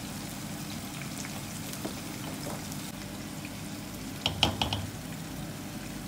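Butter sizzling steadily in a pot as drained, boiled rice is tipped in and stirred. A little past four seconds in, a few quick scrapes and knocks of a silicone spatula against the pot.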